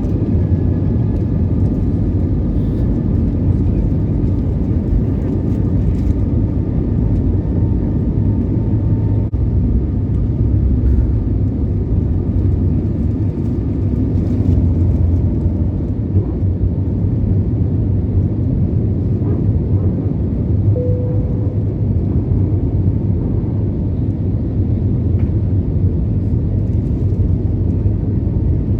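Steady low rumble of an Airbus A320neo's engines and airflow heard inside the passenger cabin, with a short tone about two-thirds of the way through.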